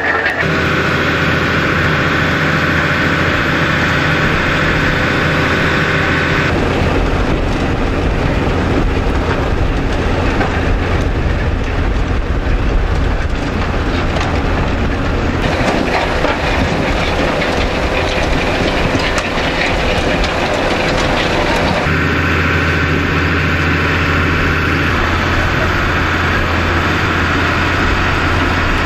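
Ropa Maus sugar beet cleaner-loader working: its heavy diesel engine runs steadily under the rattle of beets going through the pickup and conveyors. The sound changes abruptly about six seconds in and again about twenty-two seconds in.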